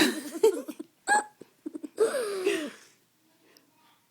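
A baby making pretend coughs: several short voiced bursts in the first three seconds, the loudest at the very start, then quiet for the last second.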